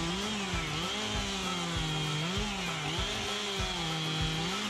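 Stihl 440 Magnum two-stroke chainsaw with a 25-inch bar cutting through a small-diameter log, running at high revs. Its engine pitch sags under load and picks up again about once a second.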